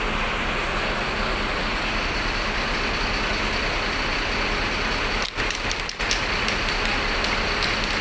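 Steady, even noise of large vehicle engines running, with no clear pitch, briefly cut by two short dropouts about five and six seconds in.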